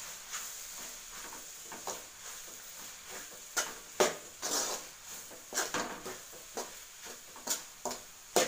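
Steel spoon scraping and knocking irregularly against an aluminium kadai as a thick onion-and-masala fry is stirred, the loudest knocks about 4 s in and near the end.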